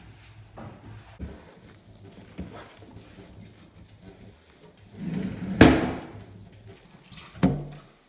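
Bathroom cabinet drawer being handled: a few light clicks, then a slide building to a loud knock about five and a half seconds in, and a second sharp knock near the end.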